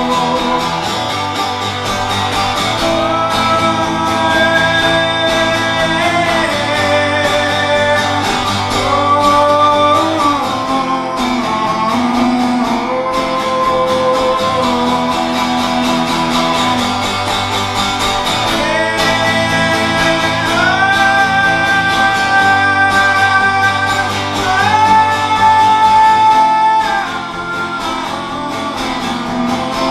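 Band playing an instrumental guitar passage: a lead line of long held notes that slide up and down over strummed guitar accompaniment.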